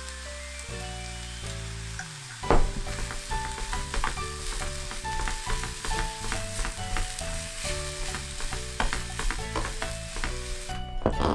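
Cabbage fried rice sizzling in a frying pan while a wooden spatula stirs and scrapes it, starting with a sharp scrape about two and a half seconds in. Background music plays throughout.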